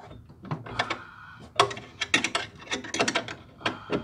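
A small hand wrench tightening a nut on a wire-ground lug: a run of irregular sharp metallic clicks and clanks.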